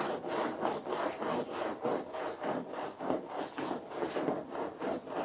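Long-handled scrub brush scrubbing a soapy, foam-covered carpet in quick back-and-forth strokes, about three a second.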